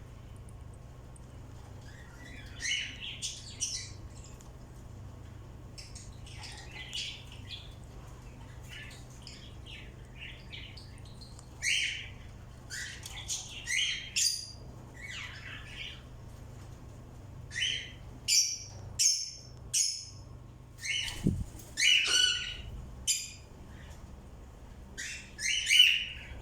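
Birds calling: short squawks and chirps in irregular clusters, busier and louder in the second half, with the loudest near the end.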